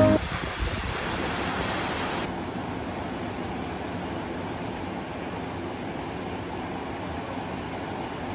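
Multnomah Falls, a tall waterfall, rushing with a steady hiss of falling water; about two seconds in this gives way to steady ocean surf breaking on a sandy beach.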